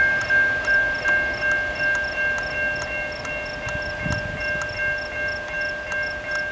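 Railroad grade-crossing warning bell ringing steadily, about three strikes a second, while a freight train rolls away, faintly rumbling.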